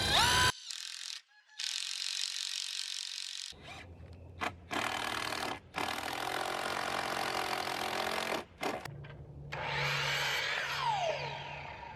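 A power tool working wood in several short, abruptly separated stretches; its motor spins down near the end.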